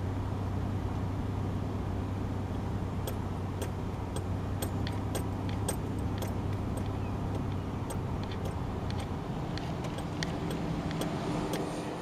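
Car driving, heard from inside the cabin: a steady engine and road hum, with many light scattered clicks and rattles.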